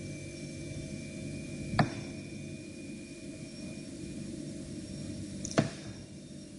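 Two sharp single clicks about four seconds apart, from a computer mouse, over a steady electrical hum and hiss.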